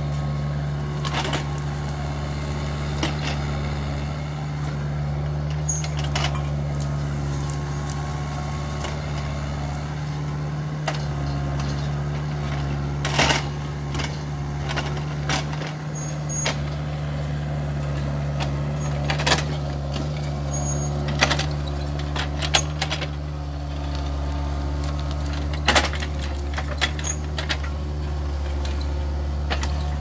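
Kubota mini excavator's diesel engine running steadily under hydraulic load, with scattered sharp clacks and snaps as its steel rake attachment drags and piles brush and branches.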